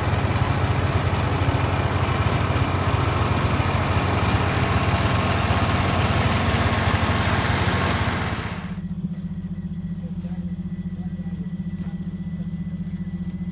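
Vehicle engine running under a loud rushing noise. Near the end it cuts abruptly to a quieter, steady engine idle.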